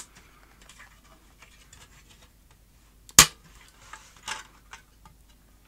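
A thin plastic insulating sheet being slid off a monitor's power supply assembly: faint rustling and light ticks, with one sharp click about three seconds in and a short rustle a second later.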